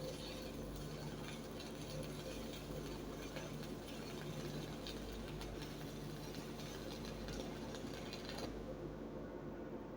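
Stick-welding arc crackling as an E6013 electrode burns along the joint, over a steady welding-machine hum. The crackle cuts out about eight and a half seconds in.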